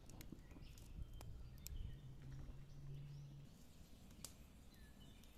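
Faint wood fire crackling in a clay hearth, with a few sharp pops, while small birds chirp now and then.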